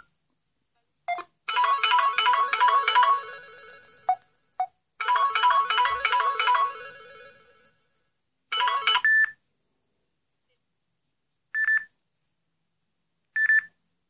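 Samsung Galaxy S3 Mini stock ringtone and notification tones played one after another through the phone's speaker. A short synthesized melodic phrase of repeated notes plays twice. It is followed by a brief chime and two short single beeps, with silence between each tone.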